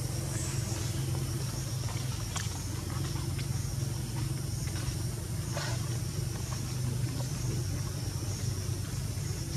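Steady low hum of an engine running in the background, with a faint steady high insect drone and a few soft clicks.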